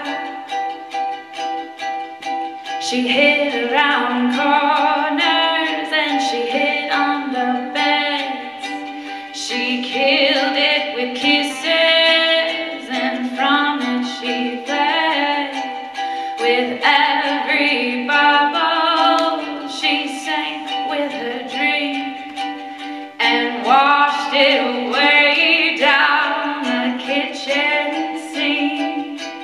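A woman singing a song to a strummed ukulele accompaniment.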